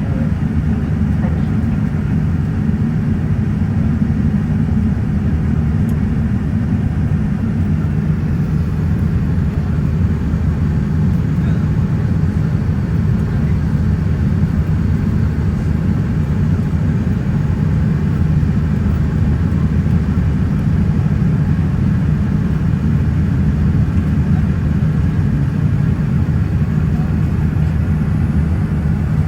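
Steady low drone of a Boeing 787-9 cabin in flight: Rolls-Royce Trent 1000 engines and airflow rumbling evenly with no change in pitch or level.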